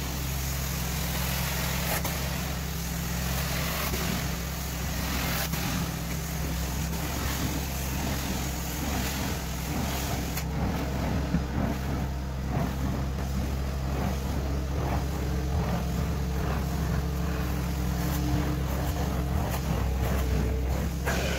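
Hot-water carpet extraction wand drawn across carpet, its suction hissing over the steady low hum of the extraction machine's engine and vacuum.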